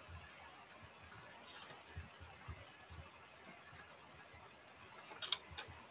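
Faint light ticks and taps of a ruler and pencil being handled on a sketchbook page, with a few sharper clicks near the end.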